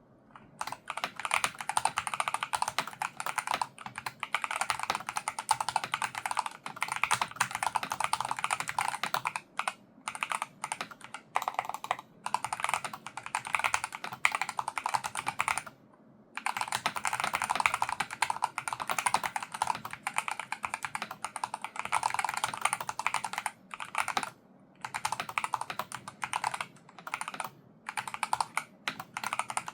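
Typing on a Logitech G Pro X TKL Rapid keyboard with analog Hall-effect magnetic linear switches: rapid, continuous runs of key clacks broken by short pauses, the longest about sixteen seconds in.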